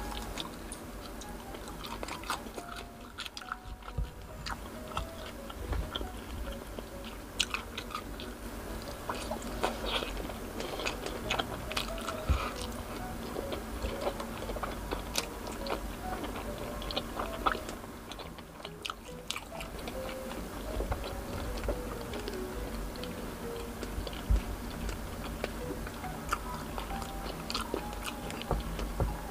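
Close-miked chewing and biting of grilled Filipino street food on skewers, with many small wet clicks and crunches, over faint background music.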